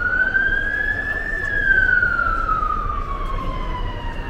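Emergency vehicle siren in a slow wail, loud over street traffic. It rises in pitch for about a second and a half, falls for about three seconds, then starts to rise again near the end.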